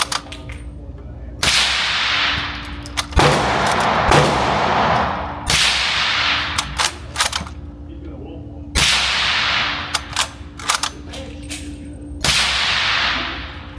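Five suppressed rifle shots of .300 Blackout 110-grain fired through a Q Black Thunder Chicken suppressor, spaced two to three and a half seconds apart. Each shot is a sharp crack followed by a long fading echo, with smaller clicks between the shots.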